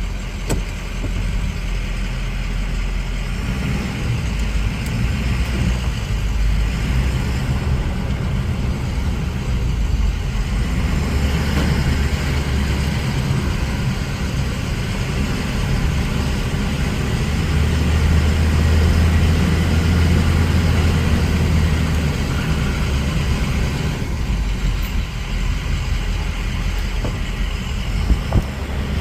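Ford 6.0 Powerstroke V8 turbodiesel in a 2008 E350 van, running on a test drive, with steady engine and road noise that swells for a few seconds in the middle.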